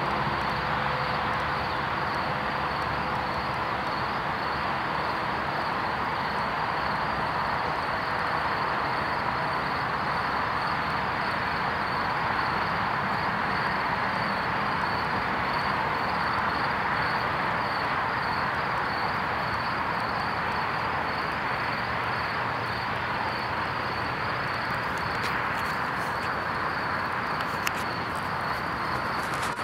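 Steady hum of distant road traffic, with insects chirping in a fast, even pulse above it. There are a few faint clicks near the end.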